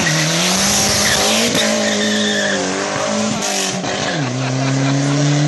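Ford Escort RS Cosworth rally car's turbocharged four-cylinder engine running hard as the car slides through a hairpin, tyres screeching on the asphalt. About four seconds in the engine note steps down and holds lower as the car pulls away up the road.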